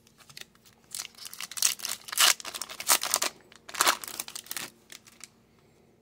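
Foil wrapper of an Upper Deck hockey card pack crinkling and tearing as it is ripped open by hand, in a run of sharp crackles from about a second in until about five seconds in.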